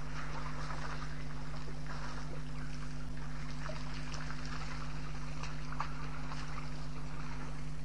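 African elephants wading in a shallow waterhole, the water sloshing and trickling with small irregular splashes, over a steady low hum.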